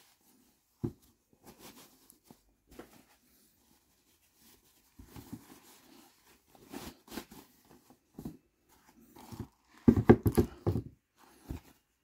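A cloth drawstring shoe dust bag being handled: short, scattered rustles and soft knocks, with a louder flurry of rustling about ten seconds in.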